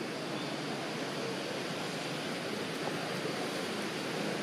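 Steady, even rushing outdoor noise with no distinct events, like wind across the microphone.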